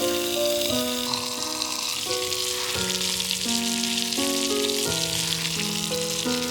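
Food sizzling in a hot pan, a dense crackling hiss that cuts off suddenly at the end, under background music of held keyboard notes.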